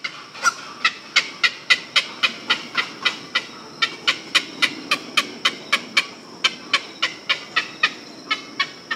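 Flamingos calling: a run of short, nasal honks about three a second, with a couple of brief pauses, over a faint steady high-pitched tone.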